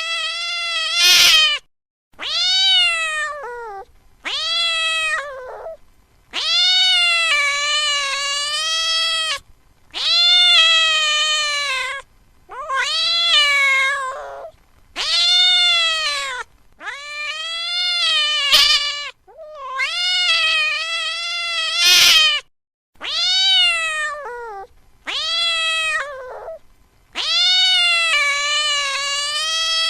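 A cat meowing over and over: about a dozen long, drawn-out meows, each a second or two long, rising and then falling in pitch, with short pauses between. A few sharp clicks come among them.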